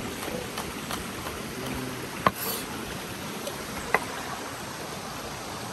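River water running steadily over rocks, with a few faint knife taps on a wooden chopping board early on and two sharp knocks a little over two seconds and about four seconds in.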